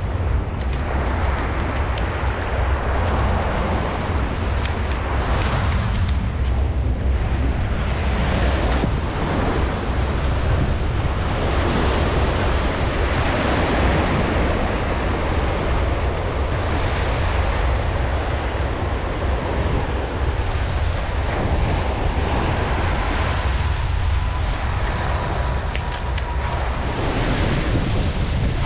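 Ocean surf breaking and washing up the beach, swelling and easing every few seconds, with wind buffeting the microphone in a constant low rumble.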